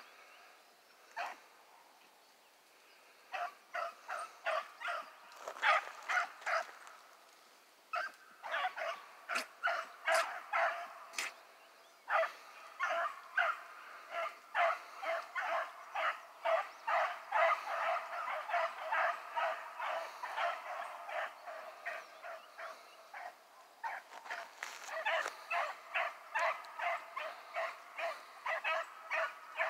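Rabbit-hunting dogs barking on a rabbit's trail: quick repeated barks, about two a second, kept up with only short lulls.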